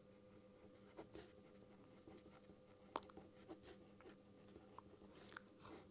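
Near silence with a few faint scratches and taps of writing, over a low steady hum.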